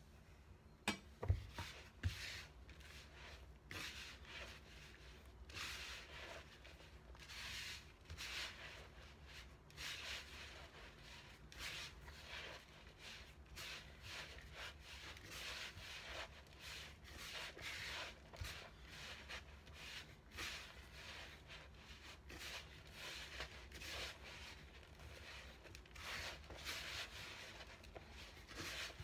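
Hand kneading and squeezing crumbly flour dough in a plastic bowl: repeated soft rubbing, scrunching strokes. A few sharp knocks about a second in.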